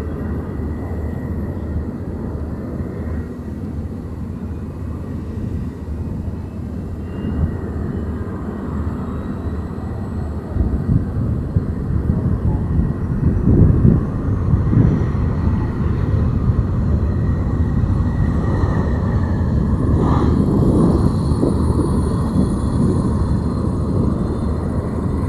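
Lockheed Martin C-130J-30 Hercules turboprop aircraft running, a steady low engine noise with a faint rising whine above it, growing louder about ten seconds in and staying loud.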